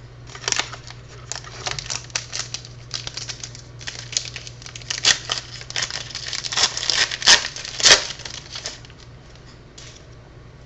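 Hockey card packs and cards being handled: a dense run of crinkling and crackling of pack wrapper and card stock, with a few louder crackles about seven and eight seconds in.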